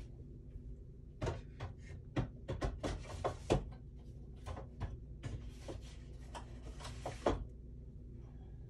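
Paper rustling and sliding, mixed with light taps and clicks as papers and craft supplies are handled and set down on a table, over a steady low hum.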